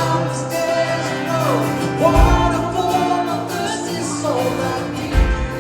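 Music with singing: a voice over instrumental backing, with low bass notes coming in every few seconds.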